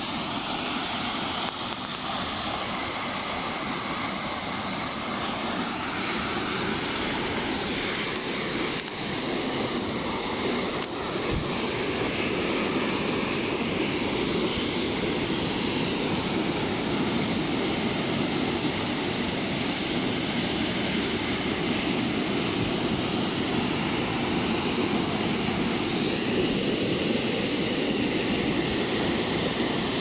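Rushing water of a waterfall and its forest stream, a steady even roar that grows a little louder after about ten seconds.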